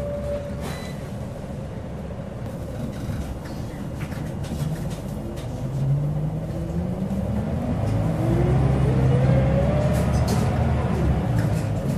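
Scania L94UB bus engine heard from inside the saloon, running with a low rumble, then accelerating from about halfway through: its note climbs steadily in pitch for about four seconds and grows louder before falling away near the end.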